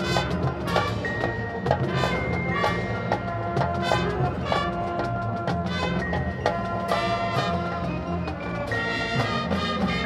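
Marching band playing: brass holding sustained notes over drums and mallet percussion, with frequent sharp strikes.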